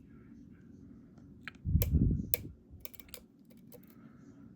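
Lockpicking tools clicking and scraping inside an EVVA ICS dimple lock as it is picked: a handful of small sharp clicks bunched in the middle, with a dull bump of handling about two seconds in.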